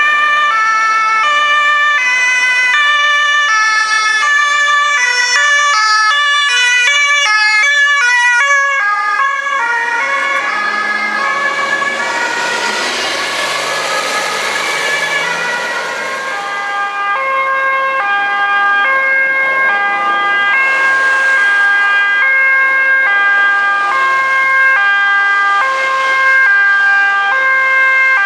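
Ambulance sirens sounding the two-tone alternating high-low pattern, several overlapping at times as different ambulances pass. A loud rushing noise swells up in the middle and fades again.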